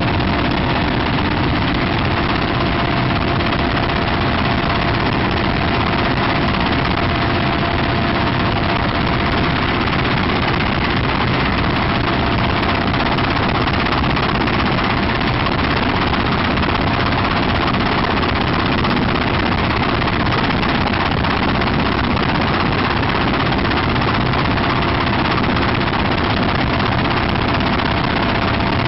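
Mi-17 helicopter's twin turbine engines and rotor heard from inside the cabin at the open door in flight: a loud, steady drone with a few constant whining tones on top.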